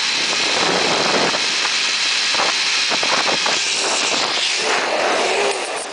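Wind rushing over the microphone and a zipline trolley running along the steel cable at speed, with a faint steady high whine; the rush eases off near the end as the rider slows.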